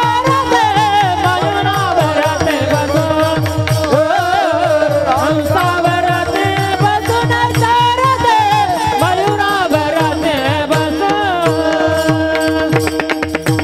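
Group of men singing a kirtan chant together, keeping time on small brass hand cymbals (taal). Under the voices are a steady held note and a low drum beating about four strokes a second.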